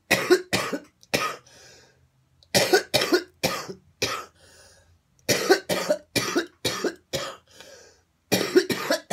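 A woman coughing hard in four fits of two to five sharp coughs each, separated by short pauses.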